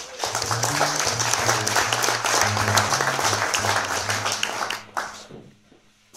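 Audience applauding mid-tune, with low double bass notes walking underneath; the applause dies away about five seconds in.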